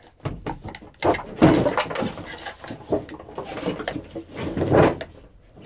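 Knocking and scraping of a fiberglass panel being worked free and pulled out, catching against the roof. There is a cluster of loud knocks and scrapes about a second in and another near the end.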